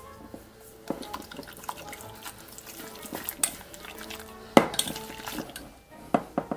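Kitchen utensils and dishes clinking and knocking, with a sharp knock about four and a half seconds in and two more near the end, over soft background music.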